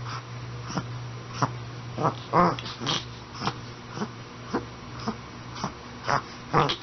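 Dog reverse sneezing: a run of short, noisy inhalations through the nose, about two a second.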